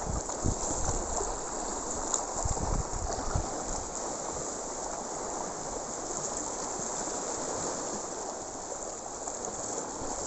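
Sea water washing over a rocky shore: a steady rushing hiss, with a few low bumps in the first seconds.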